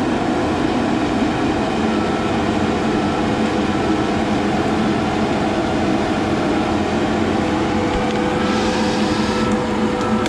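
Steady diesel drone of heavy logging machinery: the engine of the machine the camera rides on, with a John Deere grapple skidder working as it grabs and pulls a drag of logs. A short hiss comes in a little before the end.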